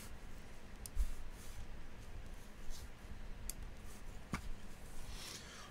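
Quiet room tone with a few faint, brief clicks and a soft low thump about a second in.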